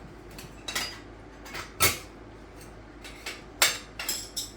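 Steel tire spoons clinking and scraping against a dirt bike wheel rim as the tire bead is levered over it: about six sharp metallic knocks, the loudest a little under two seconds in.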